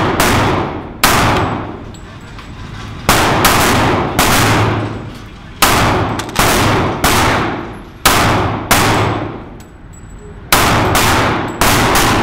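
Kimber Ultra Carry II 1911 pistol firing .45 ACP rounds, a string of some fifteen shots, about one a second with some pairs and triples in quick succession. Each shot echoes and dies away in the indoor range.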